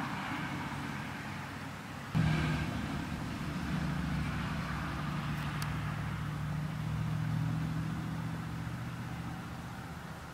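A low, steady engine hum that comes in abruptly about two seconds in and slowly fades toward the end, over a light background hiss.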